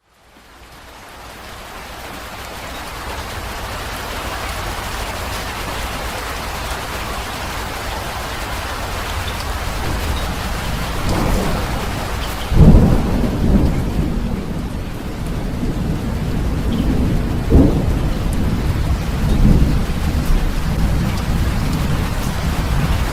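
Steady heavy rain that fades in over the first few seconds, then a thunderstorm breaks: rumbling builds about halfway through, a loud thunderclap hits, and rolling rumbles with another sharp peak follow while the rain keeps falling.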